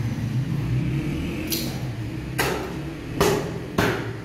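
Knife cutting through a slab of raw meat on a wooden chopping block, then three sharp knocks in quick succession from about two seconds in, over a steady low hum.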